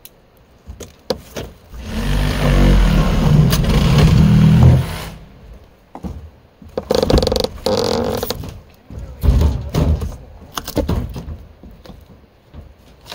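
An RV's wall panel and wooden roof framing being wrenched and torn apart by hand: a loud sustained grinding creak for about three seconds that stops abruptly, then shorter scrapes and several sharp thuds and knocks as the panel breaks away.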